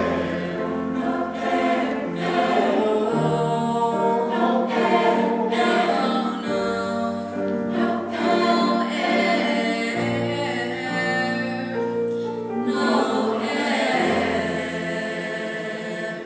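Mixed chamber choir singing in close harmony, moving through held chords; the sound tapers off near the end as the piece closes.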